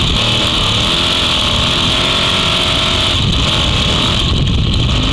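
Off-road trophy truck's engine running steadily at speed along a dirt road, with road and wind noise.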